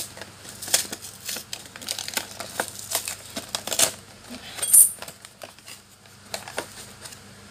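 Cardboard box of powdered milk being opened by hand: a run of clicks, rustles and crinkles of card and packaging, with one louder crackle about five seconds in.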